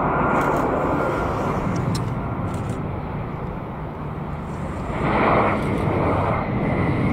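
Jet engines of a Boeing 737 airliner as it rolls fast along the runway: a steady rushing noise with a faint whine, swelling about five seconds in.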